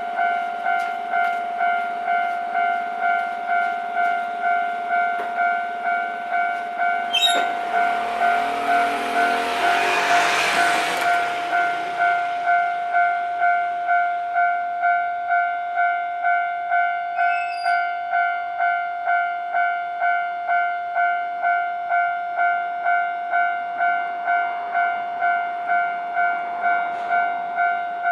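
Japanese railway level-crossing warning bell ringing in steady, evenly repeated dings. From about seven seconds in, a train passes over the crossing for a few seconds, a rushing rumble of wheels on rails that swells and fades under the bell.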